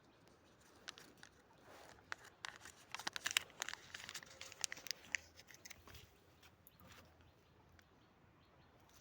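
A quick run of crackles and rustles, like something being crumpled or crunched, thickest a couple of seconds in, then dying down to a few scattered clicks.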